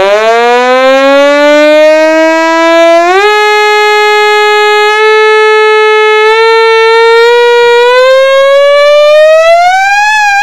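Homemade Beep Poet noise maker in a tin, played through a small portable guitar amp, sounding one buzzy synth tone rich in overtones. The tone glides slowly upward from a low pitch, jumps up a step about three seconds in, holds there with slight shifts, then climbs higher near the end, like a siren.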